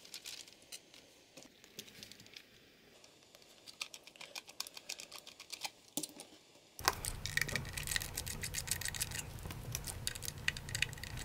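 Light, irregular clicking and ticking of a Phillips screwdriver turning out small screws from a camcorder's plastic bottom cover. The clicks are sparse at first and grow busier over the last four seconds.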